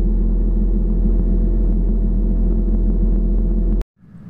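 Kenworth logging truck's diesel engine running steadily, a loud low drone heard inside the cab. It cuts off abruptly near the end and gives way to a much fainter hum.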